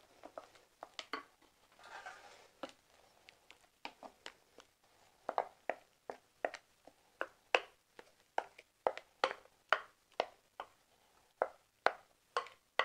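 Wooden spatula knocking and scraping against a glass mixing bowl as thick dhokla batter is scraped out into a round metal baking tin. The knocks come irregularly at first, then about two a second in the second half.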